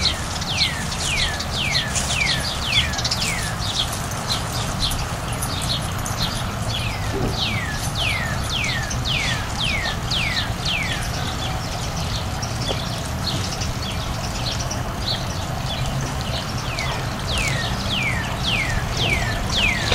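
A bird singing runs of quick, down-slurred whistled notes, several a second, with short pauses between runs, over a steady low background rumble.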